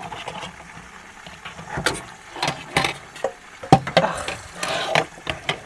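Washing up in a small sink: a plastic bowl and a steel pot knock and clatter several times, with short splashes of water, over a faint sizzle of chicken frying in oil on the hob.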